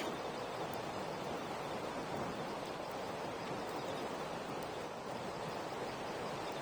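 Steady outdoor rushing noise with a few faint, sharp ticks.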